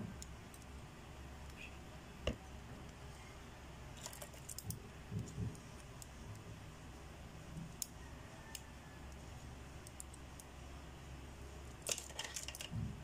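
A few light, scattered clicks and taps of a plastic spoon against a ceramic bowl as a mixture is stirred and the spoon is handled, over a faint steady low hum.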